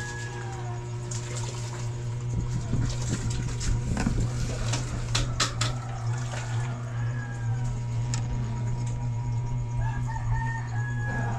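A rooster crowing, once around the middle and again near the end, over a steady low hum and a few light clicks.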